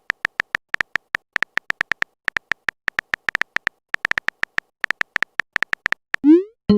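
Phone keyboard typing sound effect: a quick, irregular run of short pitched clicks, several a second. Near the end comes a fast rising whoosh and then a chime, as a message is sent.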